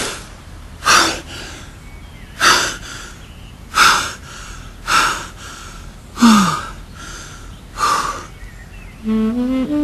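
A man breathing hard and out of breath, six heavy breaths about one and a half seconds apart, one of them with a falling groan. Background music with rising notes starts near the end.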